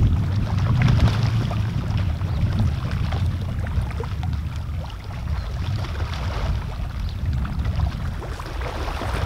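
Wind buffeting the microphone as a steady low rumble, over scattered faint ticks and splashes from the shallow flooded marsh.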